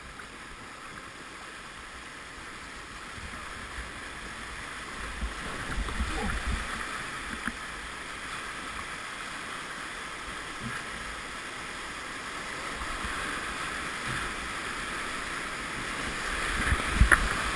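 Whitewater river rapids rushing around a kayak, growing steadily louder over the stretch, with a few dull low thumps about a third of the way in and again near the end.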